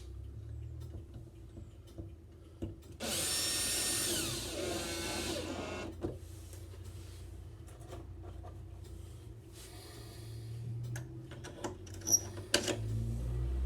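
Power drill running for about three seconds, its motor whine falling in pitch as it slows and stops, followed by a few sharp knocks and clicks.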